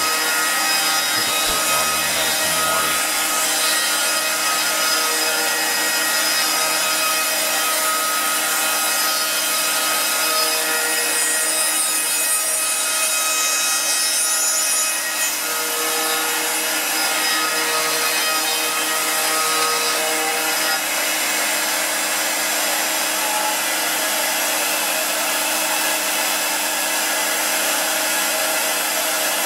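CNC router spindle running steadily, its 9 mm high-speed-steel bit spiralling down into a Douglas fir 2x4 to cut a hole. The cut runs hot enough to give off puffs of smoke.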